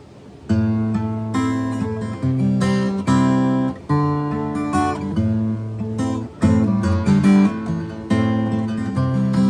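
Acoustic guitar playing chords, starting about half a second in, as the introduction to a song.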